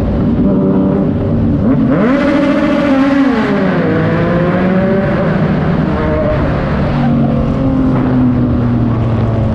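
Yamaha MT-09's three-cylinder engine through a Racefit Slash aftermarket exhaust. It runs at a steady low note, rises in revs about two seconds in, dips and climbs again, then settles back to a lower steady note about seven seconds in.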